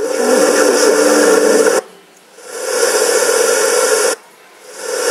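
Static hiss from a motorcycle MP3 player's FM radio through its two speakers, coming in bursts of about a second and a half that swell up and cut off sharply with short silent gaps between, as the tuner moves between stations.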